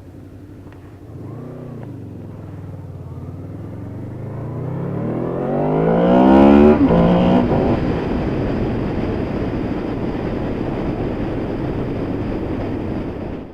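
Honda VFR800's V4 engine revving: a short rise and fall in pitch about a second and a half in, then a steady climb in pitch and loudness under acceleration that breaks off sharply about six and a half seconds in. After that a loud, even rushing noise covers the engine.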